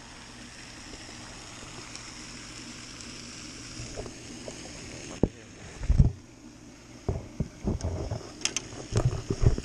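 Knocks and thumps of someone moving about on a wooden dock: footsteps on the boards and a fishing rod and gear being handled. They begin about five seconds in as a scattered run of sharp clicks and heavier thuds, over a steady background hiss.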